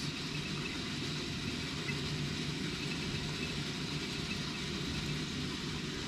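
Steady low rumble with a faint hiss from a running home reflux still, with no changes or separate events.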